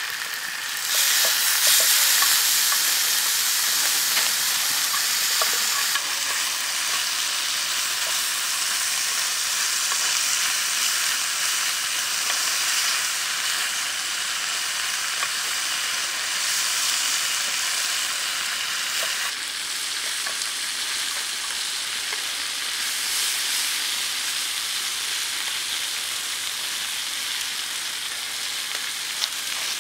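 Baby octopus, green onions and garlic sizzling in hot oil in a metal pan, a steady frying hiss that gets louder about a second in. A few light clicks of wooden chopsticks against the pan come in the first seconds.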